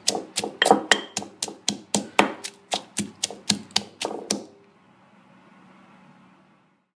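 Stone pestle pounding red chillies and garlic in a granite mortar, a steady run of sharp strikes about four a second that stops a little over four seconds in.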